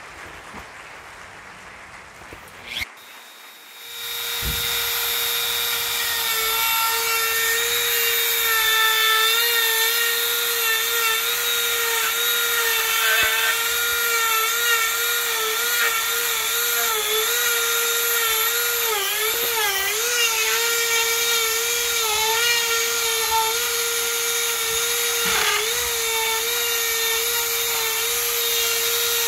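Dremel rotary tool on a flex shaft starting up about four seconds in and then running at a steady high-pitched whine while a carving bit grinds into the wood, the pitch sagging briefly a few times as the bit is pressed in.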